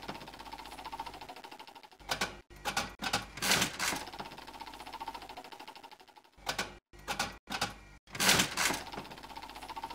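Slot machine reels spinning, a rapid run of ticks that fades away after each of several louder clatters as the reels are set going again.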